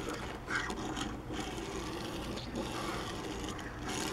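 Diecast toy truck's wheels rolling smoothly across a flat tabletop as it is pushed by hand: a quiet, steady rolling rumble with a few light clicks.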